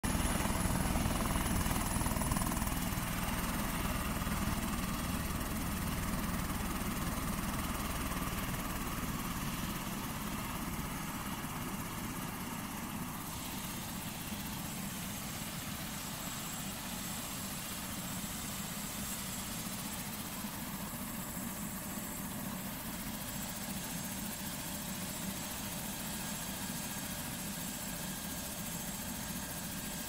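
Eurocopter EC130 helicopter shutting down. A thin high turbine whine drops in pitch about three seconds in and dies away a few seconds later. Underneath, the low rotor and engine noise continues, slowly getting quieter over the first dozen seconds before levelling off.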